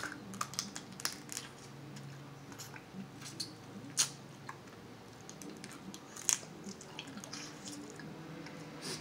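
King crab leg shells cracking and snapping by hand, with wet clicks and smacks of crab meat being pulled out and chewed close to the microphone. The sharpest cracks come about one, four and six seconds in.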